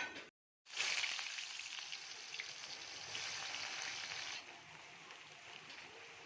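Food sizzling and crackling as it fries in hot oil in a pan. The sizzle is strongest for the first few seconds, then dies down to a quieter hiss about four seconds in.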